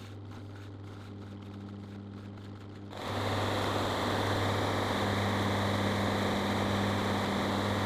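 Workshop machine's electric motor humming, then from about three seconds in a louder, steady whirring that holds without a break.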